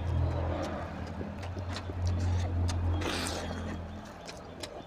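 Hand mixing rice and oily curry on a plate, and eating: wet squishing and sharp smacking clicks, over a low steady hum that stops about four seconds in.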